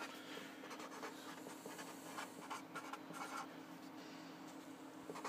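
Pen scratching on paper in short, faint strokes as names are written into a list, over a steady low hum.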